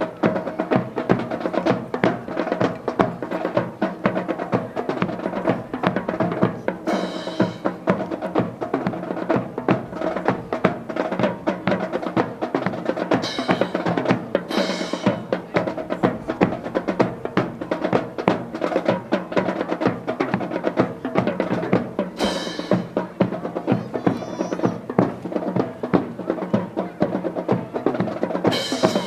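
Music driven by drums: quick snare rolls and hits and bass drum over held tones, with a bright crash now and then.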